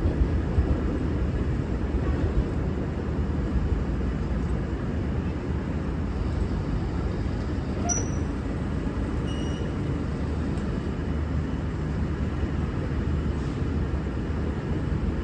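Diesel train engine running steadily, a constant low rumble, with a couple of faint short high squeaks about halfway through.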